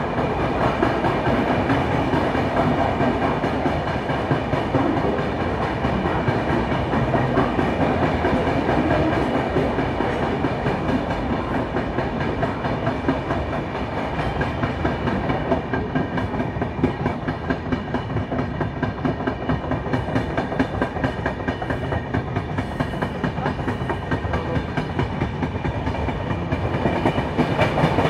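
Indian express passenger train running on the track, its wheels clattering over the rails in a steady, continuous rattle.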